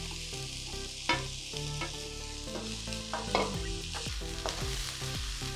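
Chopped vegetables sizzling as they stir-fry in a stainless-steel wok, with a steady hiss. A wooden spatula stirs them, scraping and knocking against the pan a few times.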